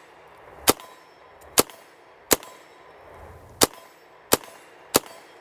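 Calico M900 9mm semi-automatic carbine fired six times at an uneven pace, about half a second to a second between shots, while its sights are being zeroed.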